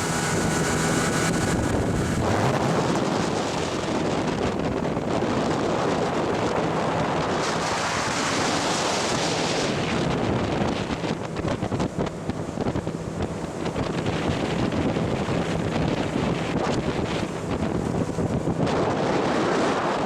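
Heavy wind buffeting the microphone over rushing water, steady throughout, with faint steady tones in the first couple of seconds.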